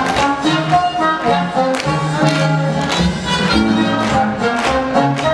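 Instrumental music with strings prominent and a regular beat.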